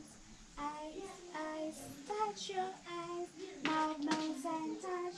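A child singing a simple song in short phrases of held notes.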